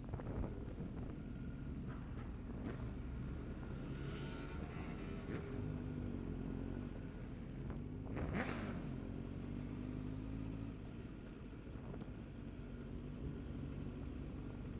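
Motor vehicle engines running steadily, with one vehicle passing close by about eight seconds in.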